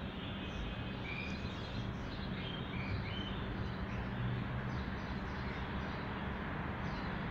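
Outdoor street background: a steady low hum with small birds chirping several times, mostly in the first half.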